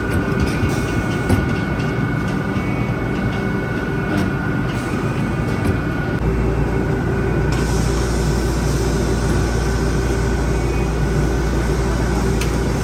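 Factory machinery running steadily, a continuous mechanical din with a few light clicks in the first half. About halfway through the sound changes, with a deeper steady hum and more hiss.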